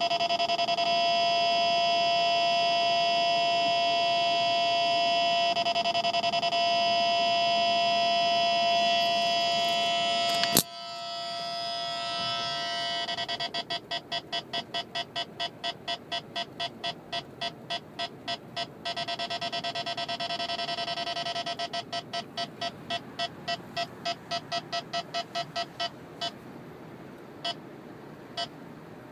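Escort Passport 9500ix radar detector sounding a K-band radar alert. It first gives a steady electronic alert tone. After a sharp click about ten seconds in, it switches to fast beeping at about four a second, which breaks off, resumes, and thins to single beeps near the end as the radar signal weakens.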